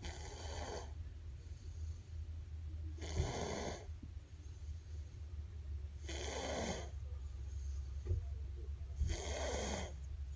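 A person snoring, four snores about three seconds apart, over a steady low hum.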